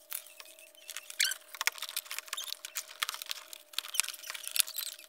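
Quick, irregular small clicks and taps of plastic car-door trim parts and clips being handled, over a faint steady hum.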